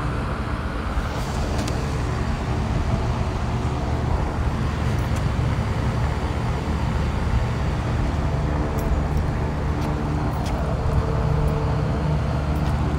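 Steady drone of rooftop air-conditioning equipment and an exhaust fan running: a constant low hum with a few held tones over a noisy rush, and a few faint clicks.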